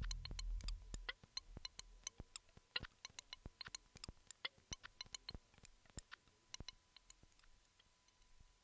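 The tail of a Eurorack modular synthesizer piece: a low bass fades out about a second in, leaving sparse, irregular electronic clicks that thin out and stop near the end, over a faint steady tone.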